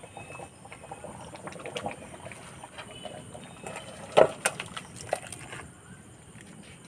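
Thick curry with chunks of giant taro pouring from a metal wok into a steel bowl, with wet sloshing and light metal clinks. A sharp metal clink about four seconds in, and a smaller one a second later.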